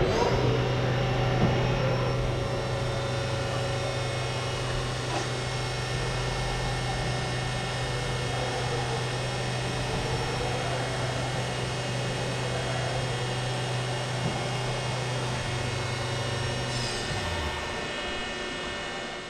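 Haas VF1 CNC vertical machining centre running: a steady low hum with a thin high whine over it. The hum drops away about seventeen seconds in.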